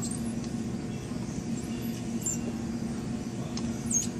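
Shop background: a steady low hum with a few short, high squeaks scattered through it, the loudest a brief falling squeak near the end.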